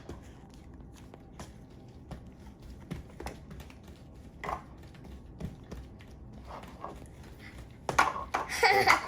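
Quiet room tone with a few faint, brief voices, then louder speech about eight seconds in.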